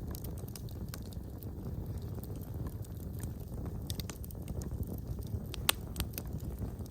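Wood fire burning in a fireplace: a steady low rush of flame with scattered crackles and pops, one sharper pop a little over five seconds in.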